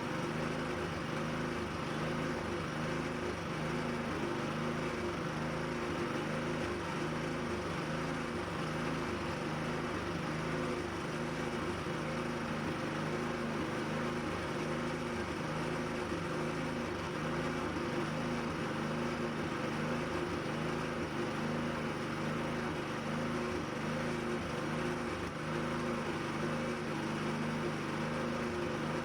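A machine running steadily at an even pitch, a constant low droning hum with no breaks.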